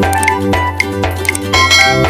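Background music with a steady beat, about two beats a second, over sustained bass notes.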